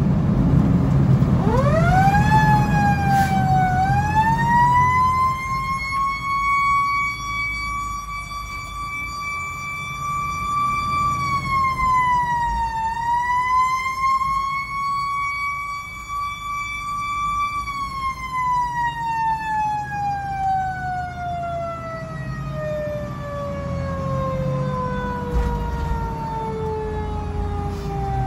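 Federal Q2B mechanical siren winding up about a second and a half in, held at a high steady wail with two brief dips, then coasting down in a long, slow fall in pitch over the last ten seconds. Heard from inside the fire engine's cab over the low rumble of the truck's engine.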